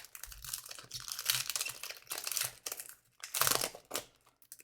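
Foil wrapper of a trading card pack crinkling and tearing as it is torn open by hand, in several irregular rushes, the loudest about three and a half seconds in.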